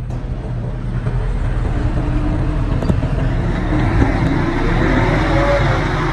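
Diesel engine of heavy earthmoving equipment running steadily. It grows louder about a second in, with a rushing, clattering noise over it, then eases near the end. A few sharp clicks come a little past the middle.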